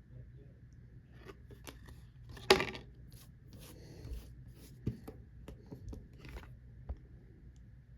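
Topps Chrome trading cards being handled and slid against one another, a run of light rustles and clicks. A sharp snap stands out about two and a half seconds in, with softer ones later.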